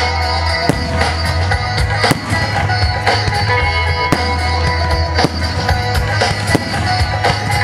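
Loud music with a heavy drum beat and sustained notes, over sharp cracks and bangs of fireworks bursting.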